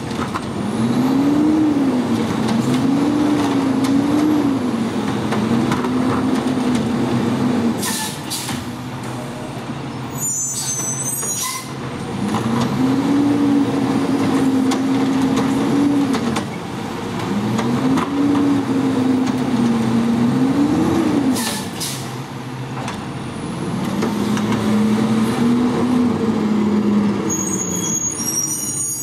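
Garbage truck with a Curotto-Can automated arm working curbside carts. The diesel engine revs up and down in four bouts as the hydraulic arm lifts and tips each cart, with a few sharp clanks and short air-brake hisses.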